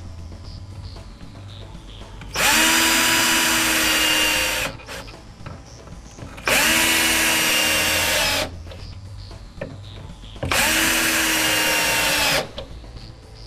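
Electric drill driving screws through a steel drawer-slide mounting bracket into the cabinet wood. The drill runs in three bursts of about two seconds each. Each burst spins up quickly and holds a steady whine.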